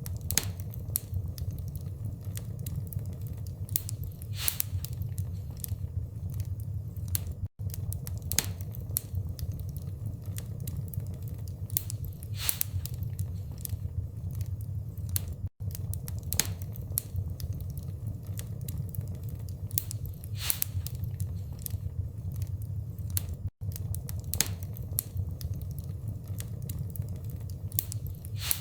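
Wood fire crackling, with many sharp irregular pops over a steady low rumble. The sound drops out for an instant three times, about eight seconds apart, like the seams of a short repeating loop.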